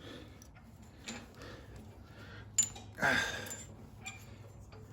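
Faint clicks and rustling of small metal parts being handled while a self-propelled mower's traction cable is fitted at the handle. A sharper click comes about two and a half seconds in, followed by a brief scraping rustle.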